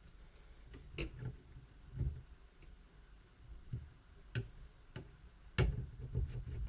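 Scattered light clicks and taps of a small screwdriver working screws out of a laptop motherboard, about eight in all, with a quick cluster near the end.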